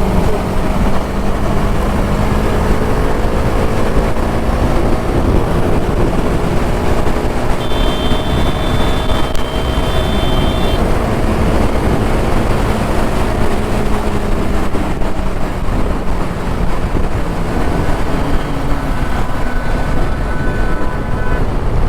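TVS Apache RR 310's single-cylinder engine running at road speed under heavy wind noise, its note slowly shifting. A steady high-pitched tone sounds for about three seconds near the middle.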